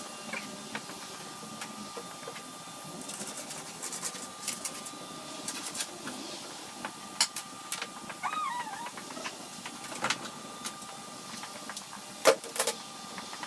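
Scattered light knocks and clicks of a long wooden board being handled and set in place on a plywood sheet, the sharpest few near the end. A short wavering animal call sounds a little past the middle.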